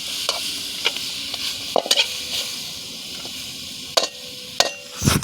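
Water morning glory stir-frying in a hot pan: steady sizzling, with a metal spatula striking and scraping the pan several times and a heavier knock near the end.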